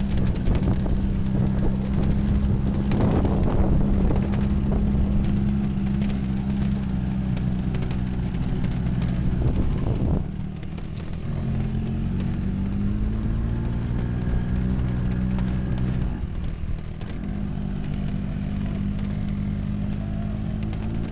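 Vehicle engine running steadily and loud, its pitch shifting as the engine speed changes about halfway through and again a few seconds before the end.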